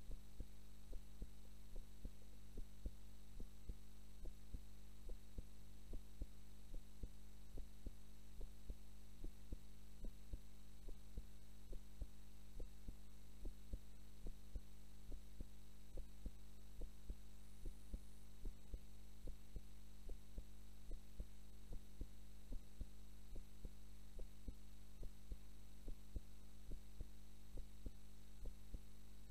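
A woman's heartbeat during sleep: slow, regular soft thuds, heard over a steady low hum.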